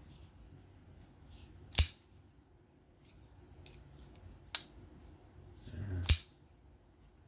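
Asher Knives Spiro folding knife, freshly fitted with skiff bearings, being flipped open and closed: three sharp metallic clicks as the blade snaps into place, the first and last loudest, with faint ticks between.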